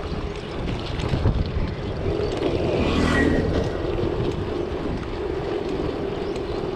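Wind noise on the microphone and road noise from a bicycle ride, swelling briefly about three seconds in.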